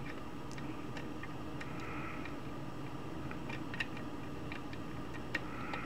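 Faint, light metallic clicks of a lock pick working the pins of a pin-tumbler challenge lock, scattered at first and coming more often near the end, over a steady low hum.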